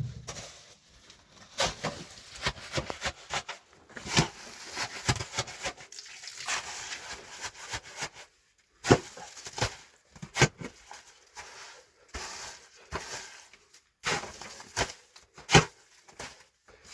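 A series of irregular knocks and clatters, with some scraping noise between them.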